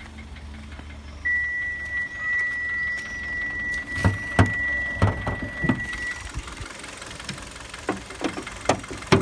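The Kia Sportage's 2.0-litre G4KD four-cylinder engine idles low underneath. A steady high electronic warning tone from the car sounds for about five seconds, then cuts off. Several sharp thumps and clicks come in the middle and again near the end.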